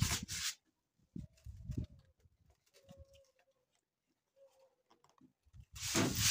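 Hands pressing a new plastic side tank onto a radiator core. The plastic rubs and scrapes against the core in two loud bursts, one right at the start and one near the end, with a few dull knocks in between.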